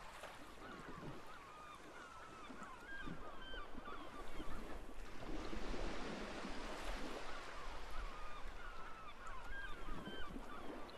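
A flock of birds calling, many short gliding notes over and over, over a rushing noise of surf or wind that grows louder about halfway through.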